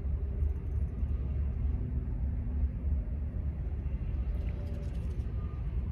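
Wind rumbling steadily on the microphone, with a few faint clicks about four to five seconds in.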